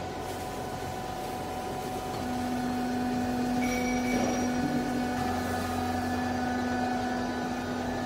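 Steady machinery hum made up of several constant tones. About two seconds in a louder, steady low drone joins and holds, and the overall level rises slightly.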